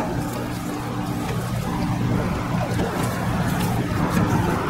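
A steady, low engine-like hum with a few faint clicks.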